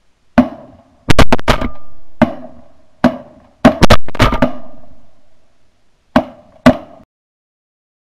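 Volley of shotgun blasts from several guns, about a dozen shots in quick bursts, some only a fraction of a second apart, each with a short echo.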